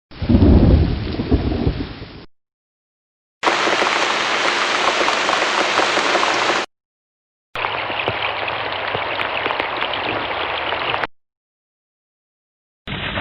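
A string of separate rain and thunder recordings with short silent gaps between them: a thunder rumble over rain for about the first two seconds, then two clips of steady heavy rain, and near the end another rumble of thunder starts over rain.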